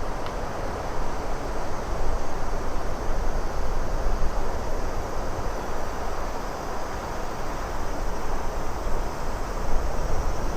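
Wind blowing steadily, with a deep low rumble underneath and gentle swells in loudness.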